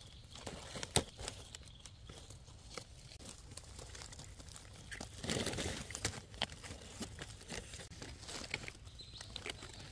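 Dry leaf litter rustling and crackling as mushrooms are picked from the forest floor, with a sharp snap about a second in and a louder stretch of rustling around five to six seconds in.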